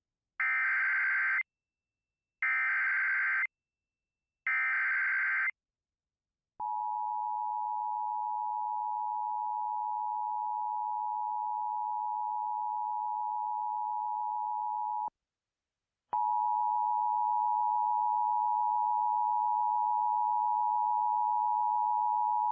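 Emergency Alert System SAME header for a flash flood warning: three short warbling data bursts, about a second each. These are followed by the EAS attention signal, a steady two-tone beep held about eight seconds, which breaks off for a second and then sounds again until the end.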